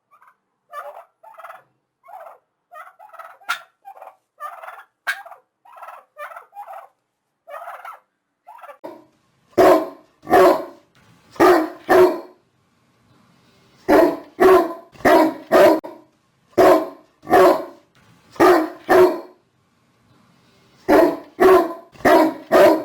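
Bird calls in short, quick clusters for the first nine seconds or so, then a dog barking loudly in runs of single barks, about two a second, with short pauses between the runs.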